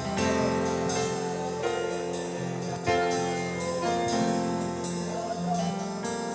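Keyboard playing slow, held worship chords that change every second or so.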